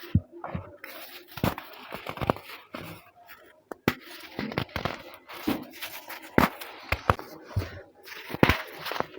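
Dried baking soda being crushed and crumbled: irregular sharp crunches, a dozen or so, with crumbly grinding in between.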